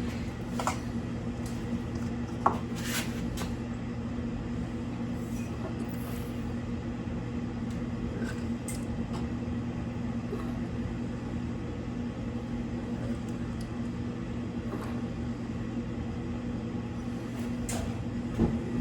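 Steady low electrical hum of a machine running in the room, with a few light clicks and knocks of parts being handled.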